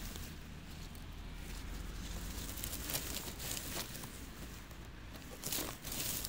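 Soft rustling and crackling of forest-floor plants and moss being brushed aside, over a low steady rumble on the phone microphone; a few louder rustles come about three seconds in and again near the end.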